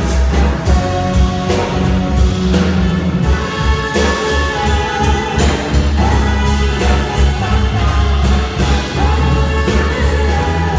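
Live smooth-jazz band playing, with electric bass strong in the low end and drums keeping a steady beat.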